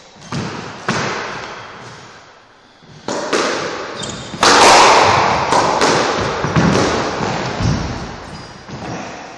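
Squash rally: the ball cracks off rackets and smacks against the court walls in a run of sharp, echoing hits, densest and loudest about halfway through, with brief shoe squeaks on the wooden floor.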